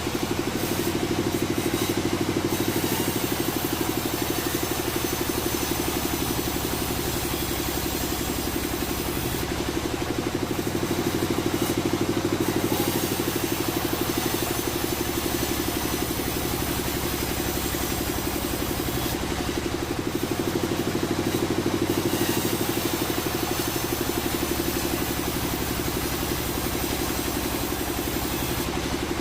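Sawmill engine running steadily, its sound shifting in a cycle that repeats about every nine to ten seconds.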